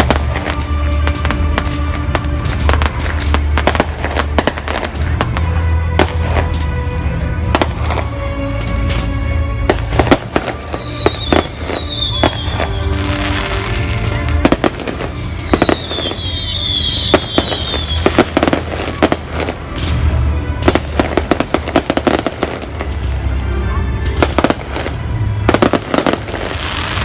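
Fireworks going off in a continuous barrage of bangs and crackles, with music playing along. Two falling whistles come around the middle.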